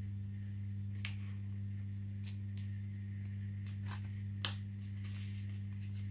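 A few small clicks and taps as the foam glider wing is handled and pressed onto the fuselage, the sharpest about four and a half seconds in, over a steady low hum.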